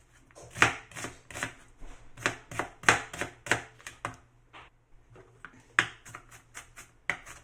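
Knife chopping a white onion on a cutting board: a run of sharp strikes, roughly two to three a second, with a short pause in the middle before the chopping goes on.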